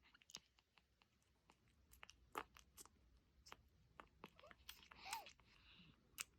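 Near silence with faint, scattered small clicks and ticks, and a brief faint sound a little after five seconds in.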